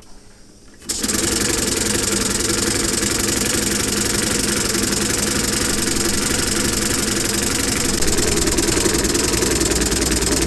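LEGO pneumatic engine with a single pneumatic cylinder starting about a second in when its valve is opened, then running fast and steady with a rapid, even clatter.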